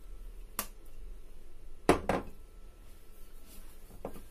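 Kitchen items being handled: a few short knocks and clinks, the loudest pair about two seconds in and another near the end, over faint room tone.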